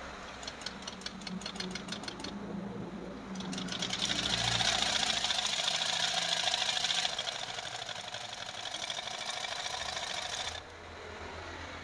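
Butterfly sewing machine stitching through folded fabric: a few slower stitches, a short pause, then a long run of fast, even stitching that stops suddenly near the end. It is a test seam after the upper thread tension was loosened to cure skipped stitches.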